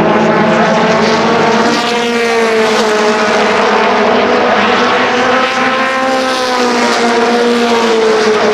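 Several race car engines running at speed around the track, their pitch rising and falling together as the cars accelerate and pass.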